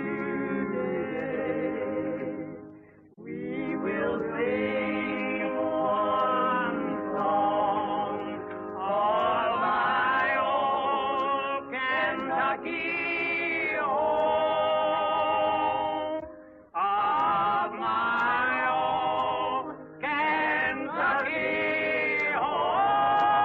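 A small group of voices singing a slow song together in phrases, with short breaks for breath, ending on a long held note.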